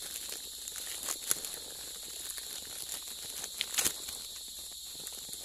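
Steady, high-pitched chorus of crickets, with scattered crackles and rustles of dry twigs and leaf litter being disturbed, the sharpest about a second in and near four seconds in.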